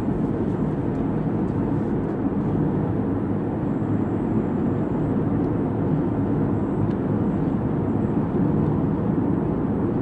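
Steady road and engine noise of a moving car, heard from inside the cabin.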